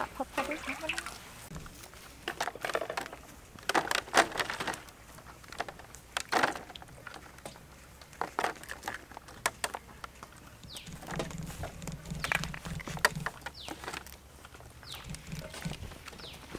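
Raw chicken feet being handled and shifted in a woven bamboo basket, making scattered soft knocks and rustles.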